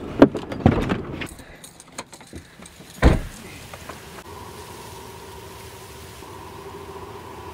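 Car doors being opened and handled, with sharp clicks and knocks, then one car door slamming shut about three seconds in. A faint steady hum with a low and a higher tone follows.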